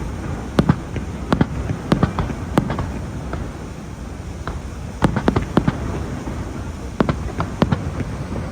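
Fireworks going off: a run of sharp bangs and pops at uneven intervals, coming in little clusters every second or two, over a steady low background noise.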